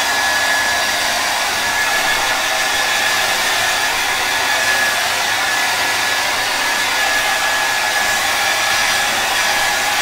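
Havells HD3151 hair dryer running steadily on speed setting 2 with the heat on: an even rush of blown air with a thin, steady whine.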